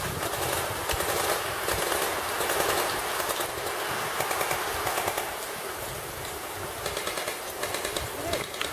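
Airsoft guns firing in rapid bursts of sharp clicks and pops.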